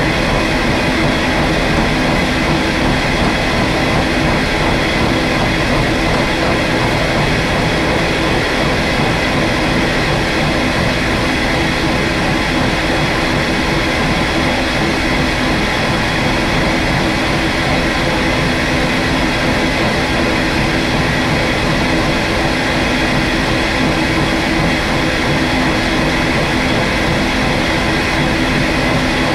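Milling machine running a disc-shaped gear cutter through a gear blank, cutting a tooth space: a steady mechanical drone with several held tones that does not let up.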